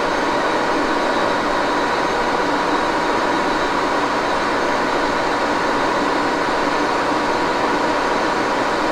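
Baby Axelson engine lathe running steadily, turning a small O1 drill-rod part with a carbide cutter; the spindle gearing gives a steady whine over a constant mechanical hum.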